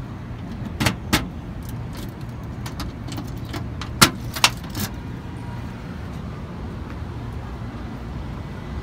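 A few sharp metallic clicks from keys at the lock of a pickup truck's diamond-plate bed toolbox: two about a second in and three more around four to five seconds in. Under them runs a steady low rumble of city traffic.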